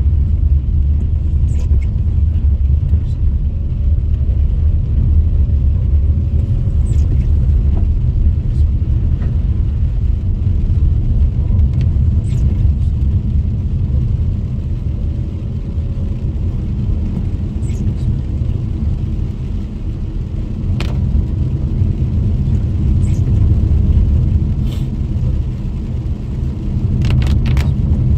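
Car driving on a wet road, heard from inside the cabin: a steady low rumble of engine and tyres, with scattered sharp ticks and a short cluster of them near the end.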